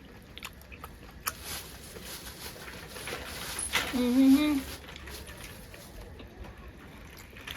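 Eating noises: scattered small clicks and smacks, with a short hummed vocal sound about four seconds in.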